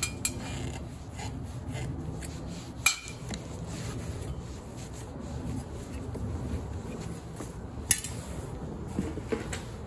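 Cloth rag rubbing and wiping over a sheet-metal furnace inducer motor mounting plate, a steady scrubbing, with two sharp knocks about three seconds and about eight seconds in.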